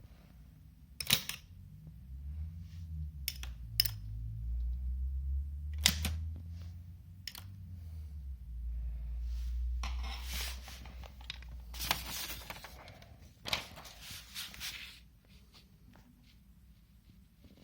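Manual typewriter being tried out: a handful of separate sharp mechanical clacks a second or two apart, then a few seconds of rasping mechanical noise with more clacks, under a low rumble of handling.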